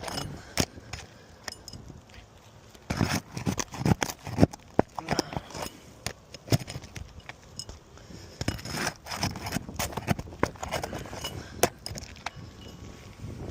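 Irregular scraping, clicking and knocking of hand work on roof shingles during a shingle repair, with several sharper knocks around the middle.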